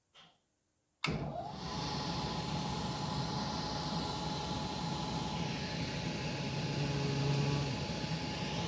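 Fan coil unit's belt-driven centrifugal blower and its electric motor running: a steady rush of air with a thin steady whine and a low hum. The sound comes in abruptly about a second in.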